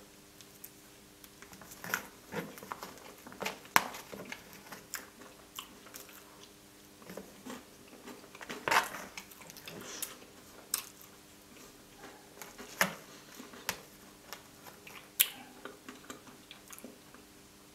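Close-miked eating of soft chocolate truffle cake with whipped cream: irregular wet mouth smacks and chewing, with sharp clicks from the spoon and plastic tray. A faint steady drone of a neighbour's lawn mower runs underneath.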